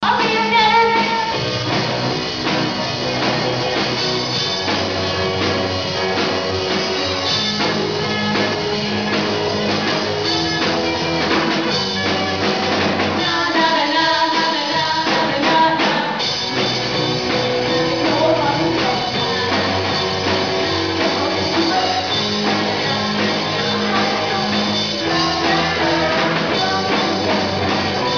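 Live punk-rock band playing a cover song with electric guitars, drum kit and keyboard, with singing. The sound is a low-quality amateur recording from the back of the hall.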